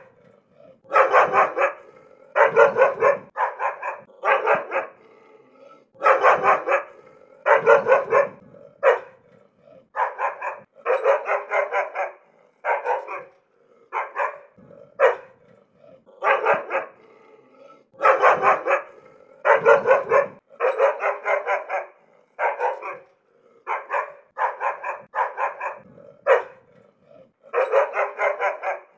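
An angry dog barking in rapid volleys of several barks each, with short pauses of about a second between volleys.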